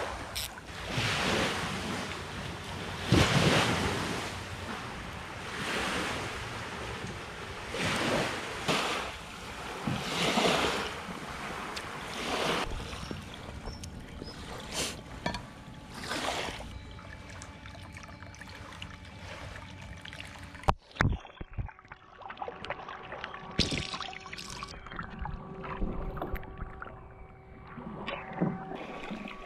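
Small waves washing in on a pebble shore in swells every two seconds or so, with some wind on the microphone. About two-thirds of the way through there is a sharp click, and the wash goes quieter under a faint steady hum.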